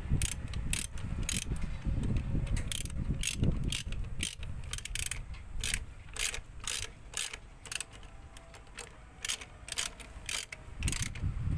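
Ratchet wrench clicking as it turns the axle-shaft flange nuts on a truck's wheel hub, short bursts of clicks on each back-stroke, about two a second.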